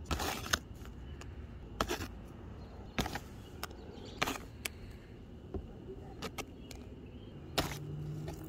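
Handling noise: scattered light knocks and scrapes as plastic toy animal figurines are moved on concrete and the phone is shifted in the hand, over a steady low outdoor background. A low steady hum lasts about a second near the end.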